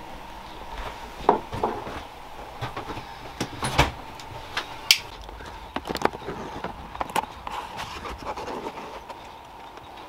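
A hand tool scraping, clicking and knocking against the aluminium shower-door track and fibreglass shower wall as the frame and its caulk are worked loose, in irregular sharp knocks with scraping between them.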